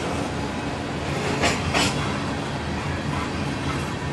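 Freight train of covered hopper cars rolling past with a steady rumble of steel wheels on rail. About a second and a half in, two sharp clacks come in quick succession from the wheels.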